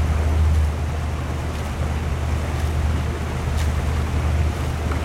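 Dragon boat paddles dipping into the water together about once a second, over a steady low rumble.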